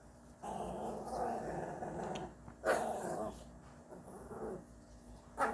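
Small shaggy dogs scuffling while one tries to mount the other, with a dog growling in a rough, drawn-out rumble. A sudden, louder, sharp outburst comes about two and a half seconds in, and another just before the end.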